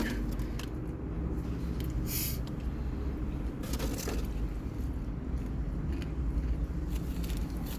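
A person biting into and chewing a chicken sandwich: a few short crackles about two seconds in and again about four seconds in, over a steady low hum.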